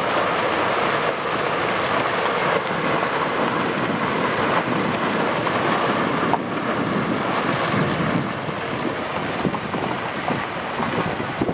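Wind buffeting the microphone over the low running noise of a Scania G410 prime mover and its curtainsider trailer driving past and pulling away, its engine and tyre noise easing slightly near the end.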